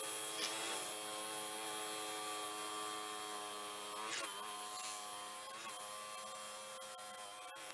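Drill press motor running steadily as it bores out the box cavity in hardwood, with a brief dip in pitch a few times as the bit bites into the wood.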